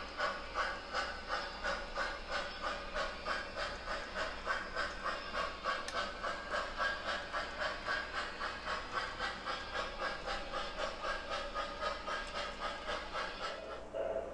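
MTH O scale model steam locomotive's sound system chuffing steadily, about three hissing exhaust beats a second.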